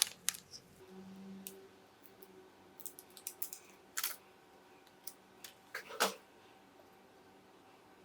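Scattered light clicks and taps from small electronic parts and tools being handled on a workbench. The loudest knock comes about six seconds in.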